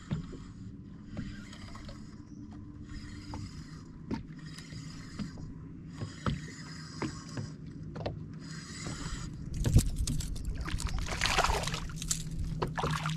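Fishing reel being cranked in repeated spells, about one a second, as a hooked fish is reeled in. From about ten seconds in there is louder splashing and thrashing with a sharp knock, as the fish comes up at the boat.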